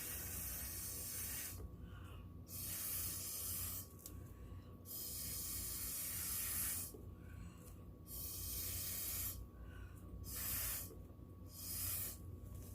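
Repeated hissing blasts of air, about six of them, each one to two and a half seconds long with short pauses between, blowing wet acrylic pour paint out across a corner of the painting.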